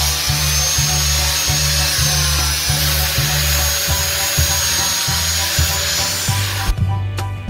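Angle grinder with a sanding disc running against a wood slab: a high steady whine over a dense sanding hiss, cutting off suddenly near the end. Background music with a steady beat plays throughout.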